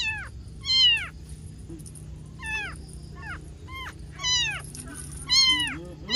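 Newborn kitten, eyes still closed, crying over and over: about six loud, high mews, each sliding down in pitch. These are a hungry kitten's cries for food.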